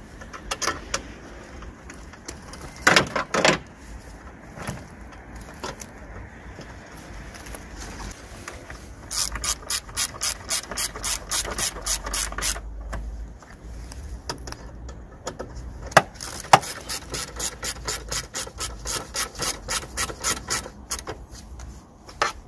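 Hand ratchet clicking in two long, fast runs of about seven clicks a second, with a few knocks between: bolts being run in to secure an air filter box.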